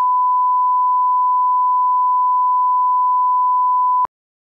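A steady 1 kHz line-up reference tone, the test tone that goes with colour bars to set audio levels at the head of a programme. It cuts off abruptly about four seconds in.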